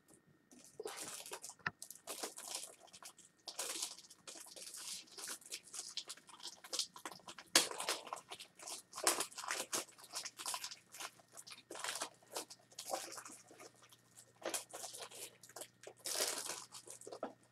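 Faint, irregular rustling and clicking from small objects being handled off-camera, in short scattered bursts.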